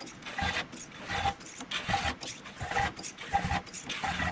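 Hand-operated fluid pump being worked with regular rasping strokes, about two a second, pumping oil into a car's rear differential; the pump is letting in air along with the oil.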